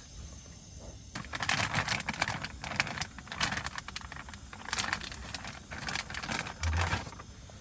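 Rapid, irregular clicking and clattering, like small hard objects being handled, starting about a second in and stopping near the end.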